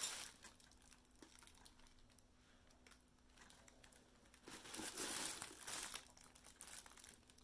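Packing paper rustling and crinkling as it is handled and searched through, in two spells: briefly at the start and again from about four and a half to six seconds in, quiet in between.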